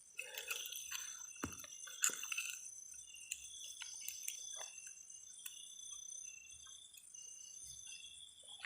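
Faint chorus of night insects, steady high-pitched chirring throughout, with scattered small clicks and rustles.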